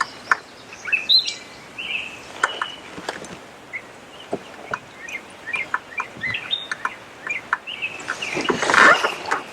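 Birds chirping, with short high calls scattered throughout, and a brief louder noisy rush about eight and a half seconds in.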